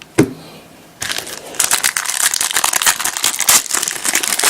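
Foil trading-card pack wrapper being torn open and crinkled, a dense crackling that starts about a second in and continues.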